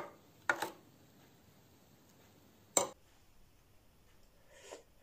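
A metal spoon clinks twice against a stainless steel pot of cocoa while stirring, once about half a second in and again near three seconds. Near the end there is a faint sip as the cocoa is tasted from the spoon.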